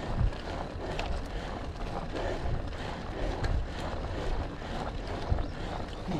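Wind rumbling and buffeting on a bike-mounted microphone, in uneven gusts.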